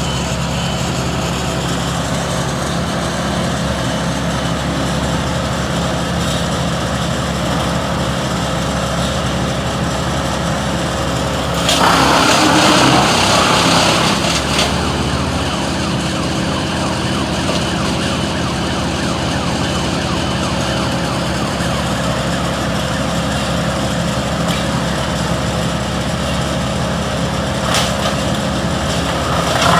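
An engine running steadily, with a louder, noisier stretch lasting about two seconds from roughly twelve seconds in.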